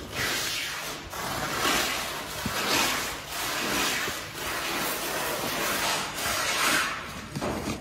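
Hands rummaging inside a cardboard box, with cardboard and packing material rustling and scraping in waves that swell and fade.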